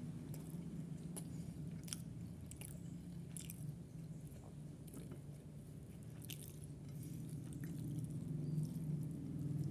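A person chewing food close to the microphone, with scattered short sharp clicks of mouth and teeth at irregular intervals. A steady low hum runs underneath.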